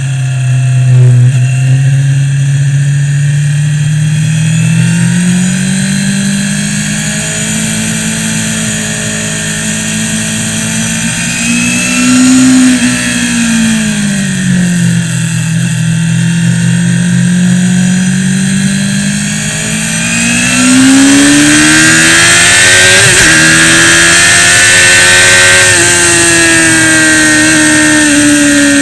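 Onboard sound of a Suzuki GSX-R sport bike's inline-four engine on a track lap, its pitch rising and falling through the corners. About two-thirds of the way in it climbs hard, with a quick gear change, under a loud rush of wind.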